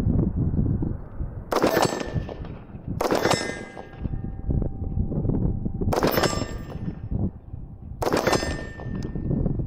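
M855 green-tip 5.56 rounds striking an AR500 steel plate: four sharp metallic clangs, each ringing briefly, spaced about one and a half to three seconds apart.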